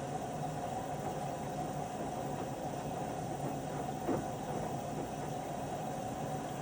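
LG WM3900HBA front-loading washer running with a steady hum, with a single short clunk about four seconds in: the strange clunking noise the washer has developed.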